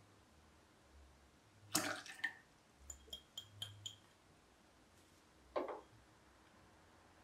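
Small double-walled glass espresso cup handled and set down on a digital scale: a knock a little under two seconds in, a quick run of five light ringing clinks about a second later, and another knock about five and a half seconds in.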